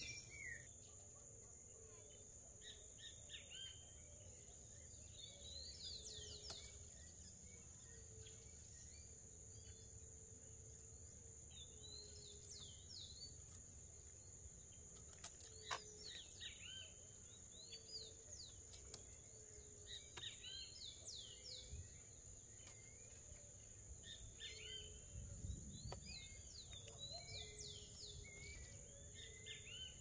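A steady, high-pitched insect trill, with many short bird chirps scattered through it.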